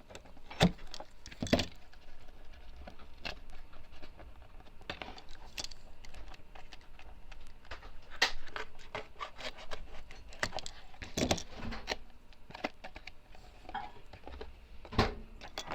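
Cardboard and craft tools being handled on a work table: irregular clicks, taps and light knocks, with a few louder knocks about half a second, a second and a half, eleven and fifteen seconds in.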